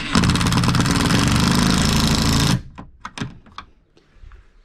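A cordless power driver running hard for about two and a half seconds as it drives a mounting screw home in the air conditioner's ceiling assembly, then stopping abruptly; a few light clicks follow.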